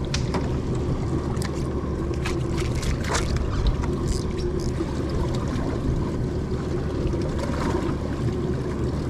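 An engine running steadily aboard a fishing boat, a constant low drone, with scattered light clicks and knocks from gear on deck.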